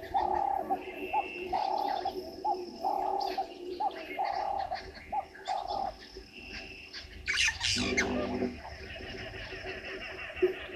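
A dove cooing a low phrase over and over, a short note then a longer one about once a second, which stops about six seconds in. Shortly after, one harsh squawking bird call, with high thin chirps continuing in the background.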